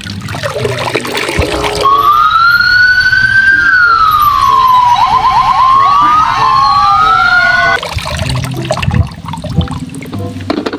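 Electronic siren wailing, its pitch rising and then falling, with a quick run of rapid yelps in the middle and two tones crossing near the end, over background music. It starts about two seconds in and cuts off about eight seconds in.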